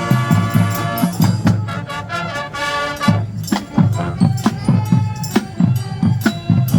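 High school marching band playing: held wind chords over a steady drum beat, the chord thinning out about three seconds in while the drums carry on.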